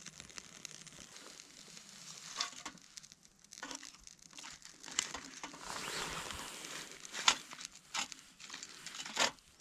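Wood fire crackling in a small folding metal twig stove as thin sticks are fed in by hand: irregular sharp snaps and crackles over a faint hiss, the sharpest about five, seven and nine seconds in.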